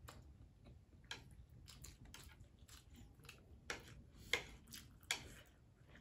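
Quiet eating noises: noodles slurped and chewed, with scattered light clicks of chopsticks and a fork on plates. Three short, louder sounds come in the second half.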